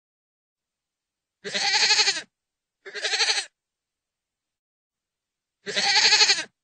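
Goat bleating three times: two calls close together about a second and a half in, then a third near the end. Each call lasts under a second and has a quavering, pulsing tone.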